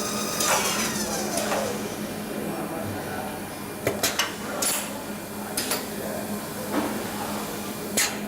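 A spinning machine's whine glides down in pitch and fades over the first two seconds as it runs down. It is followed by a few sharp metallic clinks and knocks spaced a second or more apart.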